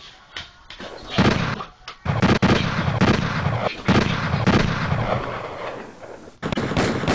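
Gunfire: a string of loud gunshots with echoing tails, several in quick succession over a few seconds.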